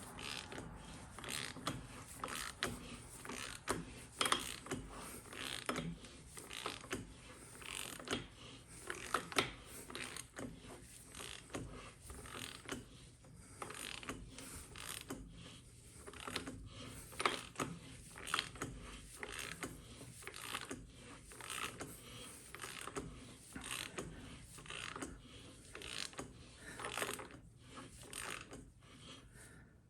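Socket ratchet clicking in repeated strokes as it turns the forcing screw of a crankshaft hub installer tool, pressing the hub onto the crank snout.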